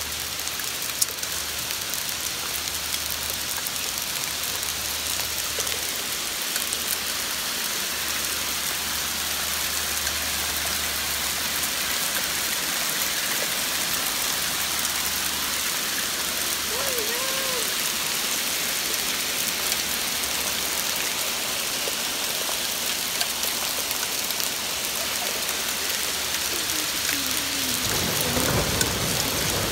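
Hail and rain falling hard, a dense, steady hiss of pellets and drops hitting the ground and nearby surfaces. A low rumble joins in near the end.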